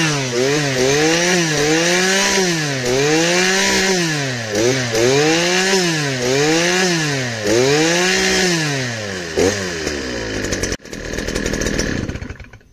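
Stihl FS 260 brush cutter's two-stroke engine being revved over and over, climbing from idle to high speed and dropping back about every one and a half seconds. It pulls up cleanly and runs without fault, its loss of power cured. Near the end it drops back and shuts off.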